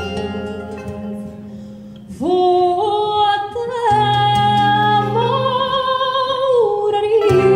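A woman singing live to Portuguese guitar and acoustic guitar accompaniment. A held note fades away over the first two seconds, then she comes in again with an upward slide into a phrase of long, sustained notes with vibrato over the plucked guitars.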